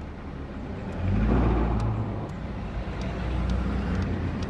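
Road vehicle noise swelling about a second in and then fading slowly, over a steady low hum.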